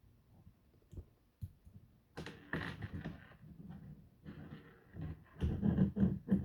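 Hard plastic LEGO and Bionicle pieces being pulled apart and handled: a few sharp clicks, then bursts of clicking and rattling, loudest near the end.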